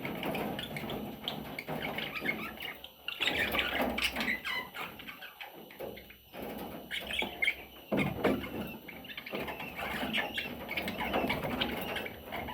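Budgerigar chattering and chirping in short, irregular bursts, with a few brief pauses.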